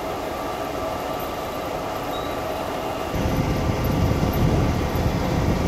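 Diesel dump truck engine running while the raised bed tips out a load of sorghum grain, with a steady whine over it. About three seconds in, a heavy low rumble suddenly comes in and stays.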